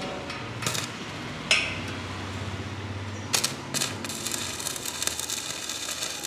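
Stick (manual metal arc) welding a steel pipe to a steel stair member: a few sharp crackles as the electrode is struck, then a steady frying crackle of the running arc from about four seconds in.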